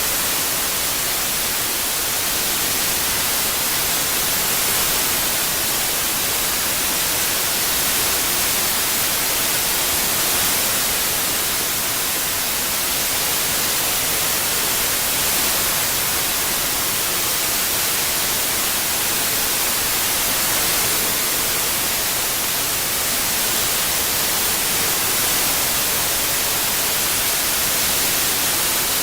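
Generated white noise: a steady, even hiss with no pitch or rhythm.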